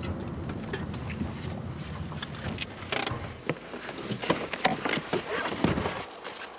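Steady engine and road rumble inside a moving car's cabin, then about halfway through a sharp clack and a run of clicks and knocks as the car door opens and people climb out.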